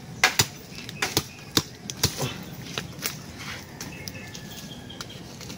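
A blade hacking at the base of a bamboo shoot: a run of sharp, irregular cuts, thinning out about three seconds in.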